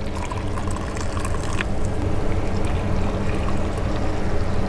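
Just-boiled water poured from a small pan into metal camp mugs, a steady trickle and splash, over a steady low hum.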